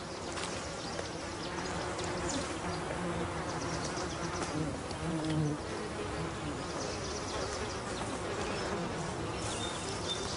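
Flies buzzing around a mule deer carcass, several hums drifting up and down in pitch as they weave in and out.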